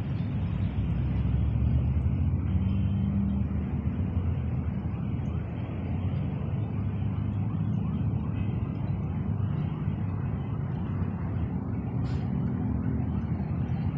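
A steady low outdoor rumble with no distinct events, and a brief click about twelve seconds in.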